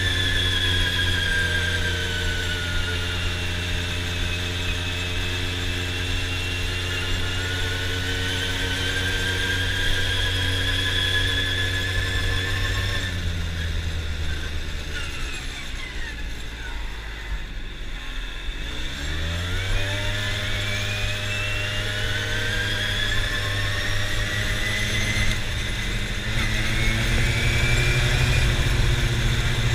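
Quad bike engine running steadily under way with a high whine over it, then easing off about halfway through, its pitch falling over several seconds, and picking up again and holding steady for the rest.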